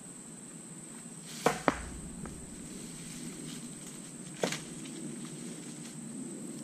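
Rocks thrown by hand landing on other rocks with sharp clacks: two quick ones about a second and a half in and another about four and a half seconds in.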